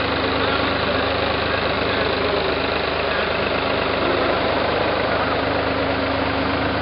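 Tractor diesel engine running steadily while it pulls and powers a tractor-operated boom sprayer that is spraying.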